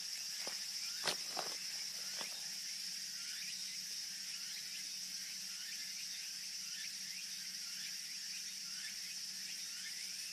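Steady, high-pitched insect chorus, with a few faint clicks in the first couple of seconds.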